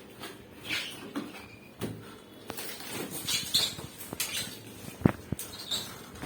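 Packing materials being handled while a washing machine is unboxed: scattered rustles and short high squeaks, with a sharp knock about five seconds in.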